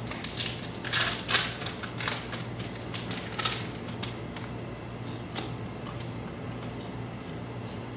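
Baseball cards being flipped through quickly by hand: a rapid, irregular run of light card clicks and slaps, thickest in the first few seconds and sparser after. A low steady hum lies beneath.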